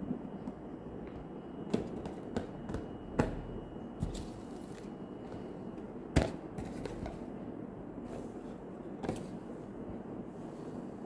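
Small cardboard blind boxes being handled and set down on a hard tabletop: several light taps and knocks, the loudest about six seconds in, over a steady background hiss.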